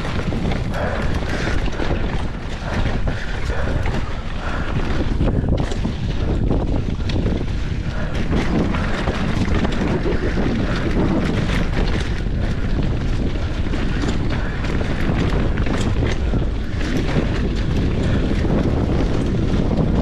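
Wind buffeting the microphone of a mountain bike rider's camera on a fast trail descent, over the rumble of tyres on dirt. Many small knocks and rattles run through it, from the bike jolting over rough ground.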